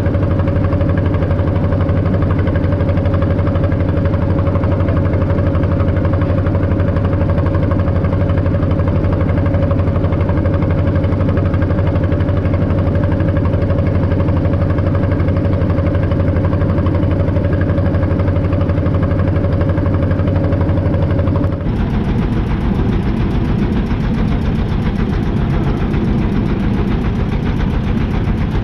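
Small wooden fishing boat's hand-cranked inboard engine running steadily under way. About 22 seconds in, the sound changes abruptly to a rougher, less even running.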